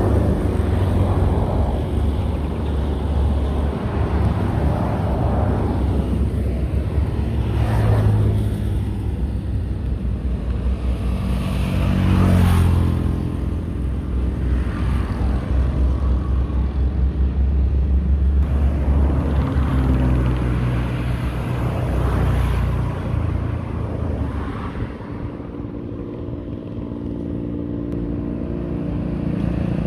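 Road traffic on a busy highway: cars and motorcycles going by one after another over a constant low rumble. The loudest vehicle passes about twelve seconds in, its engine note dropping as it goes by.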